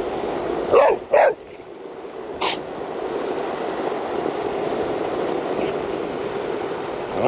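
A dog barking twice in quick succession about a second in, and again right at the end, over the steady rumble of skateboard wheels rolling on asphalt. A short sharp sound comes between the barks, about two and a half seconds in.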